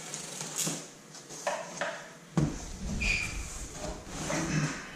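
Cardboard shipping box being opened by hand: flaps and packing material rustling and scraping, with a sharp knock about halfway through.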